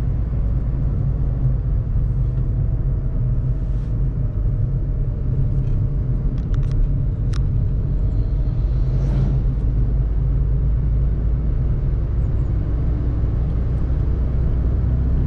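Cabin noise of a Volkswagen Fox under way: its 54 hp petrol engine running with a steady low rumble of engine and road noise, and a faint engine tone slowly shifting in pitch in the middle. A few light clicks come about halfway through.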